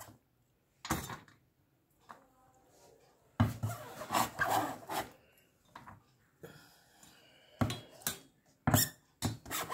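Stainless steel cleaver scraping chopped onion across a cutting board and onto a steel plate. There is a single knock about a second in, a scrape lasting over a second about three and a half seconds in, then several sharp taps of the blade near the end.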